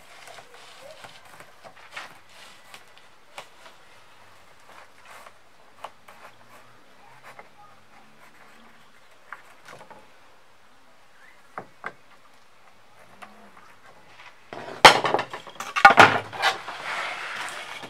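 Wooden boards being handled: scattered light taps and knocks, then a loud clatter of wood knocking on wood about 15 seconds in, followed by a short rush of noise.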